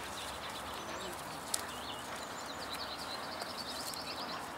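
Wild birds singing: scattered high chirps and, about three seconds in, a fast trill of rapidly repeated notes, over a steady outdoor hiss. A single sharp click about a second and a half in.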